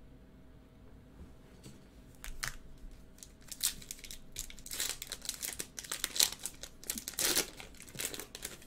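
A foil trading-card pack wrapper being torn open and crinkled by hand: a run of sharp crackles and tearing starting about two seconds in, growing louder as the foil is pulled apart.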